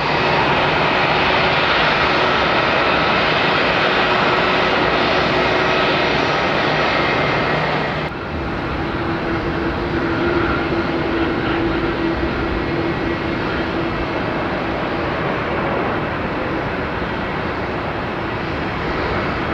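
Jet engines of an Airbus A320-family airliner taxiing, a steady whine with a low hum. About eight seconds in the sound cuts to a Boeing 777-300ER's GE90 turbofans as it touches down and rolls out on the runway, steady jet noise with a held tone.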